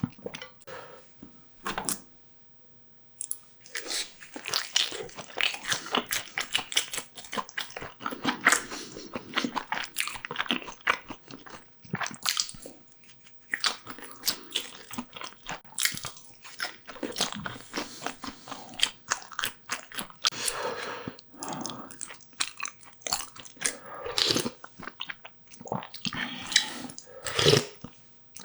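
Close-miked eating sounds: a person chewing and biting with crunchy, wet clicks, pausing briefly about two seconds in.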